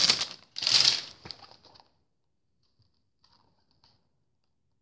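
A brief rustle of a spiral-bound book being swung up and handled close to the microphone, followed by a few faint taps, then near silence.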